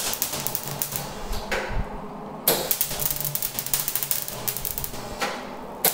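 MIG welder crackling in short runs on a thin car exhaust pipe. One run stops about a second and a half in, the next starts a second later and stops near the end, and a third begins just before the end. The runs are kept short because welding continuously burns holes through the thin metal.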